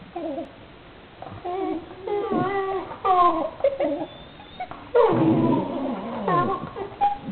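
Two dogs play fighting, giving a run of short whining, yipping calls that slide up and down in pitch. The loudest stretch comes about five seconds in.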